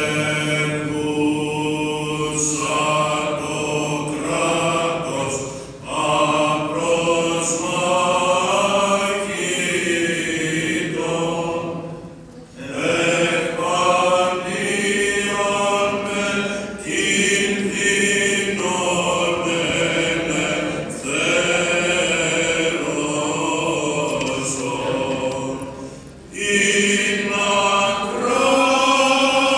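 Unaccompanied Byzantine chant sung by Greek Orthodox church chanters: a hymn in long melodic phrases, broken by short pauses for breath about 6, 12 and 26 seconds in.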